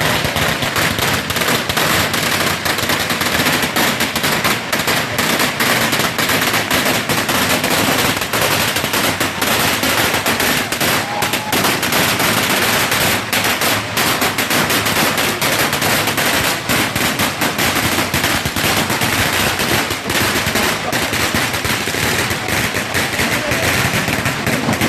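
Firecrackers going off in a dense, rapid, unbroken crackle of sharp bangs.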